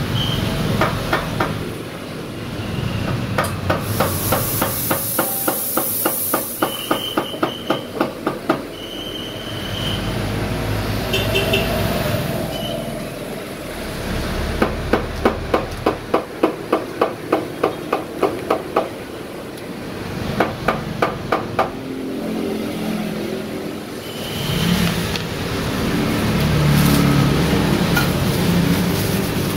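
Café work sounds at an espresso bar: runs of rapid, even knocks, about four a second, lasting a few seconds each, with a brief hiss and several short high beeps.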